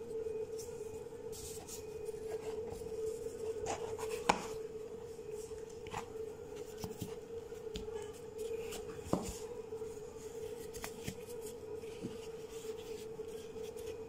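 Plastic dumpling press handled and folded shut over filled dough: hands rubbing on dough and plastic, with scattered sharp clicks, the loudest about four seconds in. A steady hum sits under it all.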